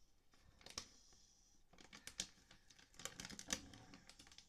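Plastic food packet being handled and opened: faint crinkling and tearing in a few short bursts, with sharp little clicks.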